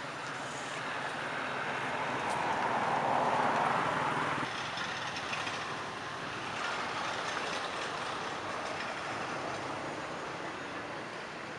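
Road vehicle noise, a steady rush with a low engine hum, swelling to a peak about three seconds in as a vehicle passes and fading, with a smaller swell near seven seconds.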